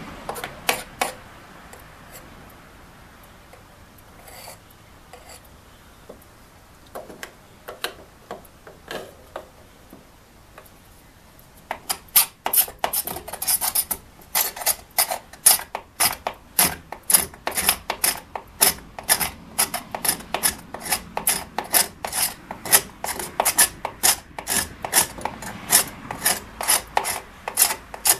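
A hand tool scraping on the wooden window frame in short strokes. The strokes are scattered at first, then from about twelve seconds in become a steady run of about three a second.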